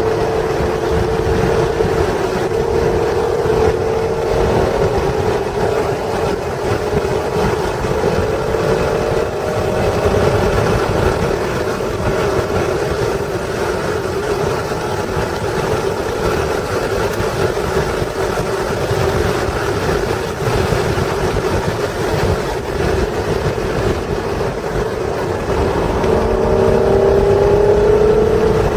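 1996 Acura NSX's 3.0-litre V6 engine running on track, its note gliding slowly up and down and climbing again near the end, over a steady low rumble.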